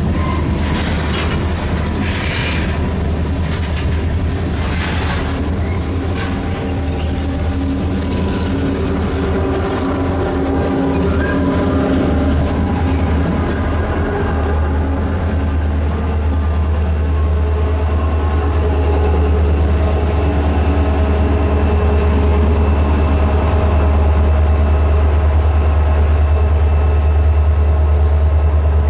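A freight train of tank cars rolling past with clicking wheels and thin flange squeal, then the trailing EMD diesel locomotives, among them an SD40T-2, passing. Their engines' deep drone takes over from about halfway and swells slightly near the end.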